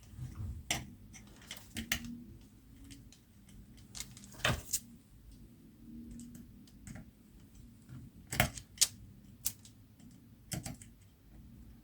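Irregular clicks and light clatter of small metal parts being handled and fitted by hand while an air gun is put back together, with a few sharper clicks about halfway through and again later.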